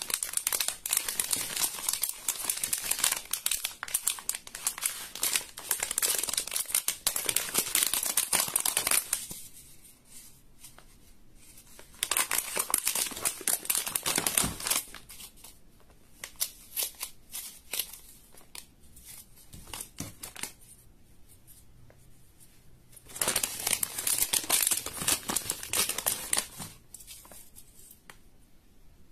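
Slime being squished and stretched by hand, giving dense crackling and popping in three long stretches with softer crackles between them.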